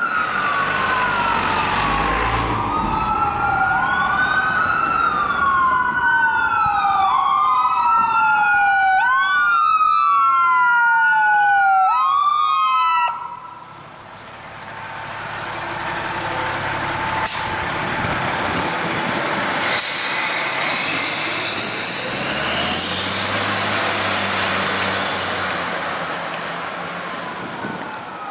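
Fire apparatus electronic sirens, Whelen by the uploader's tags, sounding a wail: at least two sirens sweep slowly down and back up out of step with each other, then cut off abruptly about halfway through. A diesel fire engine then passes close by, its engine and road noise rising and holding before fading slightly near the end.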